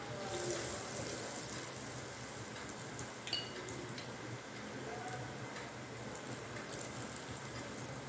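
Besan-battered potato bondas deep-frying in hot oil in a kadhai: a steady sizzle and bubbling with small crackles, livelier for about the first second as the last bondas are dropped in. A brief high ting sounds about three seconds in.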